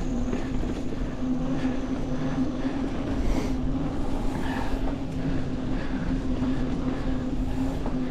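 Mountain bike rolling along sandy, hard-packed singletrack: steady tyre and drivetrain rumble with a constant low hum, and a couple of brief rattles over bumps a few seconds in.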